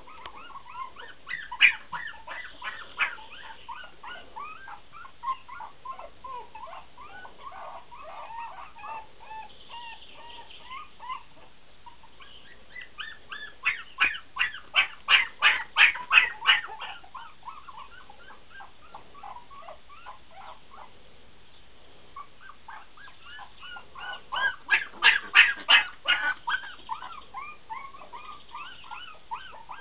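Puppies whining and yelping as they play, with many short high calls throughout, and two runs of rapid, louder yaps, about four a second: one around the middle and one near the end.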